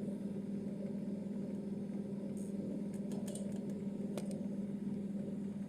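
Refrigerator compressor running with a steady low hum, with a few faint ticks of handling about halfway through.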